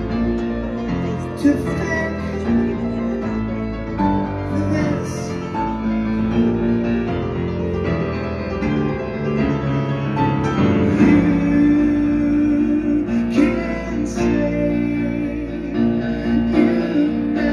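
Grand piano played live: an instrumental passage of a pop song, chords changing about every second.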